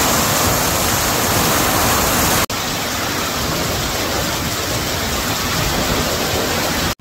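Loud, steady rushing noise with no clear pitch, broken by a sudden brief dropout about two and a half seconds in.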